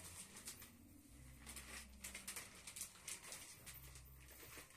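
Near silence: quiet room tone with faint, irregular rustling and soft taps.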